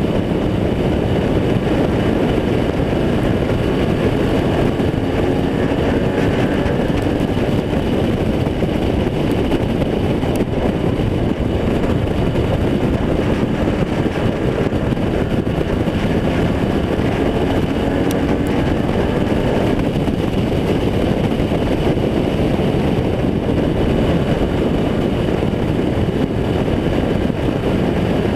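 Renegade-class race car's engine running hard under racing, heard from inside the car, its pitch rising and falling through the laps.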